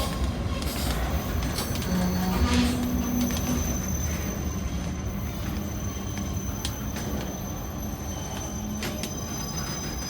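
Freight train rolling slowly, its wheels rumbling on the rails, with scattered clicks and clanks and a thin, steady high-pitched squeal from the wheels.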